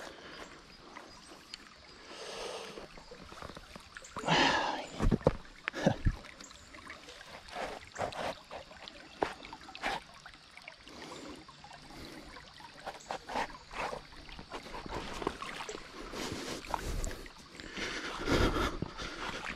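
Stream water running over rocks, with irregular knocks, scrapes and splashes of footsteps as someone crosses it on foot. There are a few louder rushes of noise about four seconds in and near the end.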